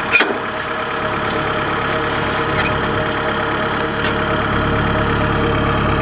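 Kubota DC70 combine harvester running steadily, its engine and threshing machinery making an even drone with a mid-pitched whine, and a deep rumble that builds from about a second in. A sharp click just after the start.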